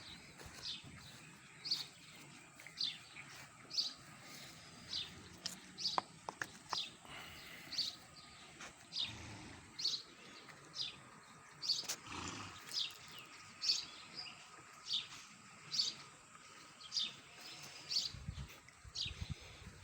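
A bird calling over and over: a short, high note sliding downward, repeated about once a second.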